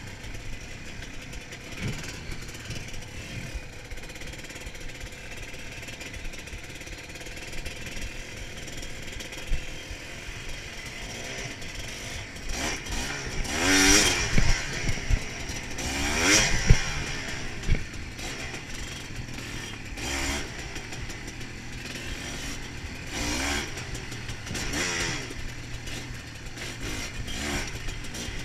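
Off-road motorbike engine running as it rides a bumpy dirt track, with wind rushing over the handlebar-mounted microphone. The revs rise and fall, climbing sharply twice about halfway through.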